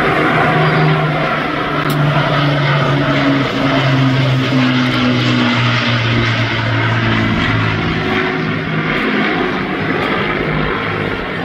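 Propeller-driven aircraft flying past, its engine note falling slowly in pitch as it goes by.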